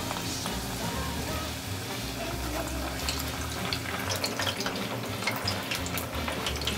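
Battered, breadcrumb-coated anchovies deep-frying in a basket of hot oil: a steady bubbling sizzle with sharp crackles that grow denser from about halfway.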